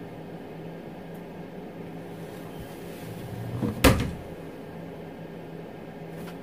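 A single sharp clack about four seconds in, over a steady low hum.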